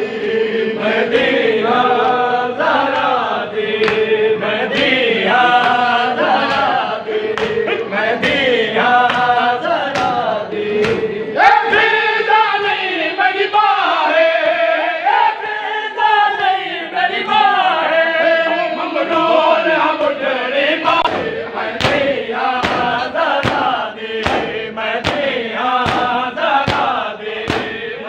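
A group of men chanting a noha, the Shia Muharram lament, in unison, with regular slaps of hands on chests (matam) keeping a steady beat. The beat is most prominent in the last third.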